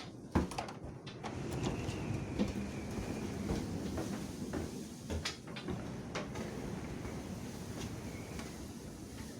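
Blizzard wind gusting against the house: a steady rushing with scattered knocks and rattles, and a faint thin whistle about two seconds in.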